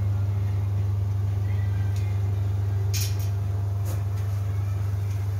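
Hydrafacial machine's vacuum pump running with a steady low hum while set to about 30 kPa of suction. A few short hissy clicks sound about three and four seconds in.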